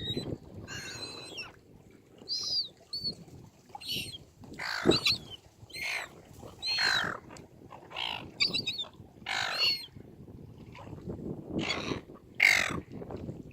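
Seagulls calling: a run of short, harsh squawks from several birds, about one call a second, some overlapping.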